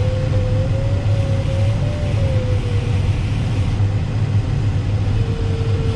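Airflow rushing past a glider cockpit as a steady low rumble, with the variometer's continuous tone wavering slightly in pitch, fading out around the middle and coming back steady and a little lower near the end.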